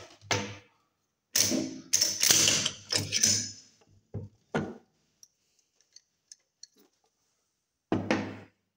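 Steel parts of a Type 56 AK-pattern rifle clicking and clanking as it is stripped: the bolt carrier is slid out of the receiver and parts are set down on a wooden table. A dense run of clanks and scrapes in the first four seconds, a few light ticks, then another clank near the end.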